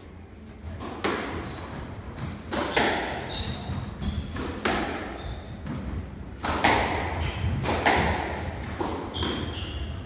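Squash rally: the ball cracking off rackets and thudding off the court walls about once a second, echoing in the court, with short high squeaks of shoes on the wooden floor between shots.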